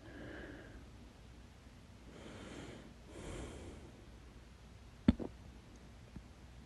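A woman breathing audibly in and out, then one loud, sharp hiccup about five seconds in.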